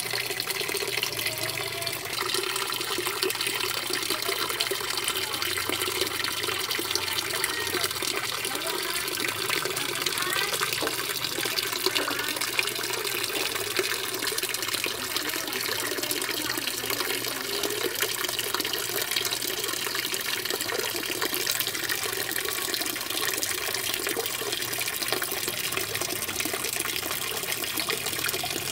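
Water pouring steadily from a pipe into a pond, a constant splashing and gushing at the surface.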